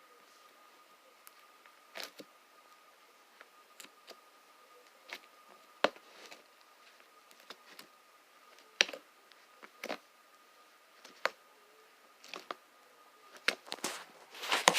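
Homemade slime being poked and squeezed by hand: scattered short sticky clicks and pops a second or so apart, gathering into a quicker cluster near the end, over a faint steady high tone.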